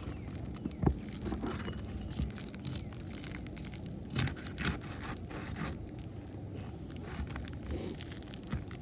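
A roofer's shingle snake scraping and rustling as it is worked under a 3-tab asphalt shingle to break it free, with scattered irregular clicks and scrapes, the sharpest about a second in and around four to five seconds in.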